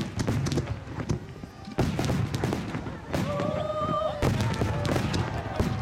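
Starmine fireworks barrage: a dense, rapid run of bangs and crackling bursts, with a whistling shell sounding for about a second near the middle.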